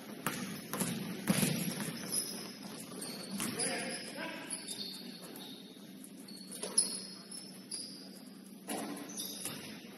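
Sounds of a basketball game in a gym: scattered thuds of the ball and short high squeaks, with players' voices in the background.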